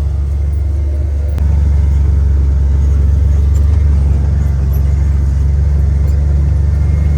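A vehicle engine running with a steady low drone, growing louder about a second and a half in.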